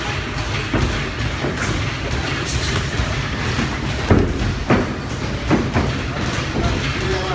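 Boxing gloves landing punches in a sparring exchange: a handful of sharp thuds, the loudest about four seconds in, over a steady low rumble.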